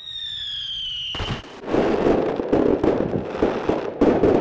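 Firework sound effect: a rocket's whistle sliding slightly down in pitch, then, about a second and a half in, a burst into dense crackling that goes on.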